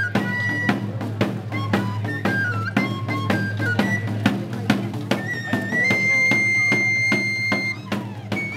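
Folk pipe-and-drum music: a shrill pipe plays a melody over a steady drumbeat, holding one long high note from about five and a half to eight seconds in.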